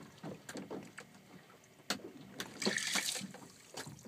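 Water lapping against the hull of a boat, with scattered light knocks and a short hiss about two and a half seconds in.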